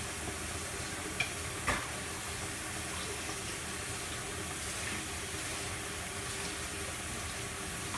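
Broth coming to a simmer under a glass lid on high heat, a steady bubbling hiss, with two short clicks about a second and a half in.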